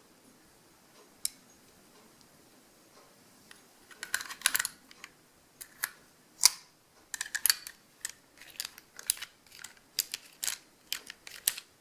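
Die-cast Hubley Colt 45 cap pistol clicking repeatedly as its hammer is cocked, the cylinder turns and the trigger is pulled. There is one clearly louder sharp snap about six and a half seconds in. Of the two round caps loaded, one fires and the other misfires.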